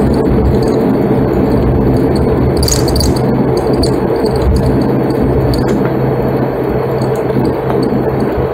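Steady drone of an ATR 72's twin turboprop engines and propellers as heard inside the cabin while the airliner rolls along the runway after landing, with a steady low hum under the noise and a few light cabin rattles and clicks.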